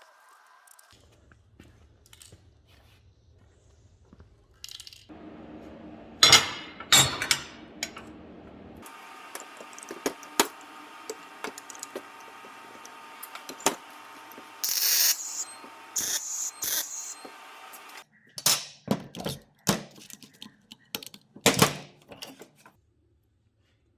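Steel parts and hand tools being handled: repeated metal clanks, knocks and clicks in several short clips, the loudest knocks about six seconds in and in a cluster near the end, with two brief hissing bursts in the middle.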